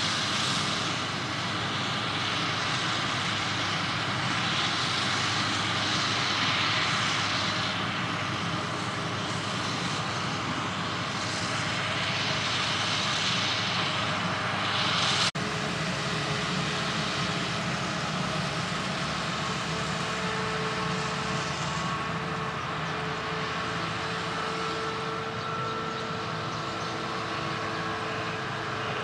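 Claas Jaguar 820 self-propelled forage harvester running under load while chopping maize, a dense steady machine noise. In the first half a hiss swells and fades every few seconds. The sound changes abruptly about halfway through to a steadier hum with a faint held whine.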